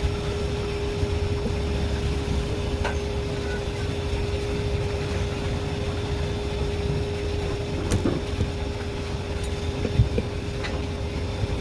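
Steady low machine hum with one constant tone running through it, broken by a few short sharp clicks and one louder knock about ten seconds in.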